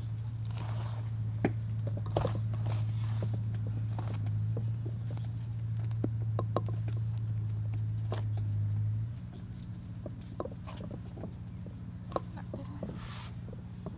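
Hands tossing and pressing battered onion in a metal tray of dry flour: soft rustling with scattered light taps and clicks. Underneath is a steady low hum that gets quieter about nine seconds in.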